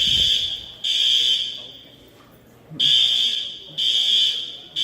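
Building fire alarm sounding the three-beep evacuation pattern: loud, high-pitched beeps, each nearly a second long, in groups of three with a pause of about a second between groups.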